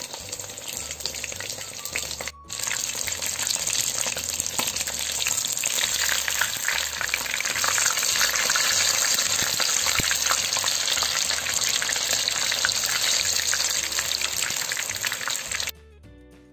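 Batter-coated perch deep-frying in hot oil in a kazan: a dense, crackling sizzle that breaks off for a moment a couple of seconds in and comes back louder. It cuts off suddenly shortly before the end, giving way to soft music.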